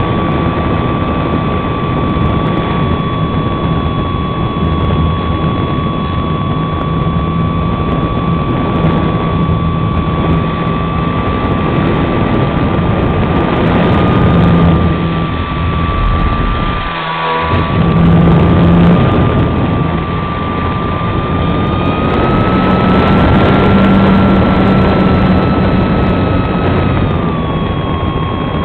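Electric motor of a SIG Riser RC model plane, a 480-class motor, running and turning its propeller, heard from a camera on board: a steady whine over a rush of noise. The sound dips briefly a little past halfway, then the whine rises slightly in pitch for a few seconds and settles back near the end.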